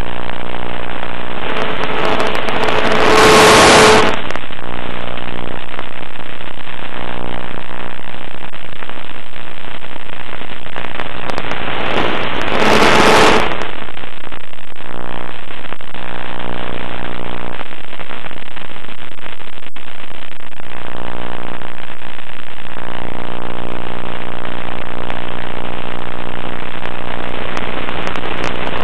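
Steady buzzing drone of a model airplane's motor picked up by the onboard FPV camera. It is broken twice by loud bursts of hissing radio static, about two seconds in and again about twelve seconds in.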